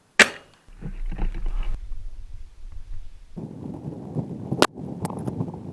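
A single sharp crack from a VSR-10 spring bolt-action airsoft sniper rifle being fired. After a few seconds come rustling, like movement through brush, and two sharp clicks.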